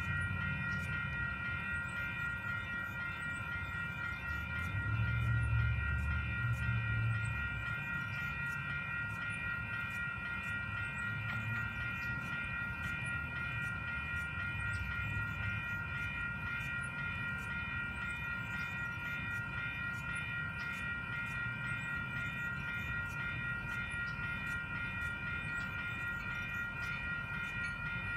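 Railroad crossing warning bells ringing continuously in rapid, even strikes, signalling an approaching train, over a low rumble that swells briefly about five seconds in.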